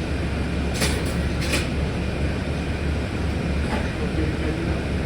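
Steady low rumble and road noise of a moving vehicle, with two brief rattles or clatters about a second in.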